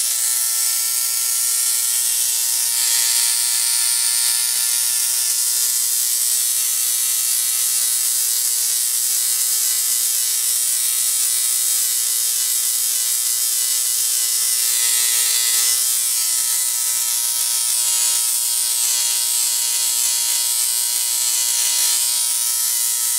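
Rotary-spark-gap Tesla coil running: a loud, steady buzz of fixed pitch from the gap firing, with the crackle of a small spark arcing between its two stacked toroids.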